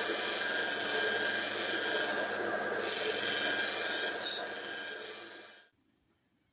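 Bench power sander grinding the steel of a locking plier: a steady rasping hiss over the motor's hum, easing briefly midway as the pressure changes. It cuts off suddenly near the end.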